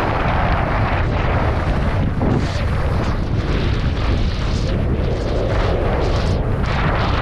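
Wind buffeting a GoPro Hero9's microphone at skiing speed, a loud steady rumble, with the hiss and scrape of skis on hard-packed, chopped snow rising and falling as the skier turns.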